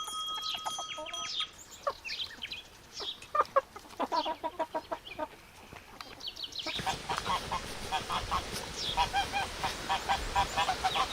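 Farm fowl calling in many short, quick, repeated calls. About seven seconds in, the background changes and a louder, denser run of calls follows.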